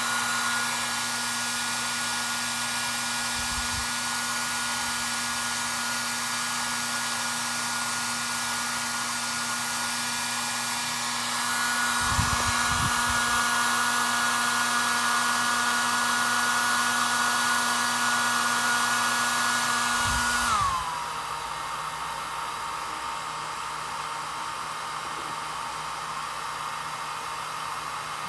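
Hand-held hair-dryer-type blower running steadily with an even rush of air and a motor whine. About twenty seconds in, the whine glides down in pitch and the blowing grows quieter as the motor slows.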